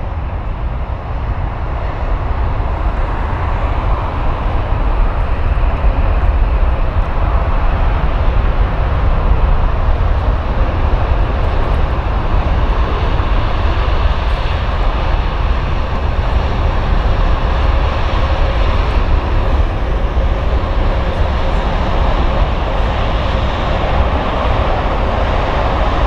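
Boeing 787 Dreamliner's twin jet engines at takeoff thrust during the takeoff roll: a loud, steady roar with a heavy low rumble that builds over the first few seconds and then holds.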